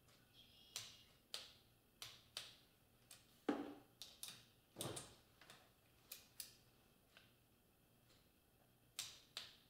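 Quarter-inch-drive click-type torque wrench working the cam chain tensioner bolts on a Kawasaki KZ650 engine as they are brought to 60 inch-pounds: a series of sharp, irregular metallic clicks, with two heavier knocks near the middle.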